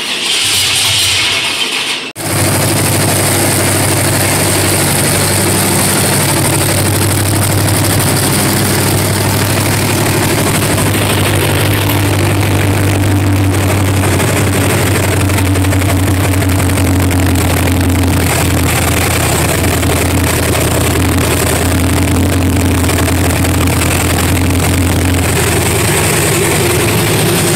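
Chevrolet LT1 small-block V8 in a 1970 Chevy C-20 pickup, running after being fired up for the first time in years. A loud burst in the first two seconds, a brief dip, then the engine runs steadily.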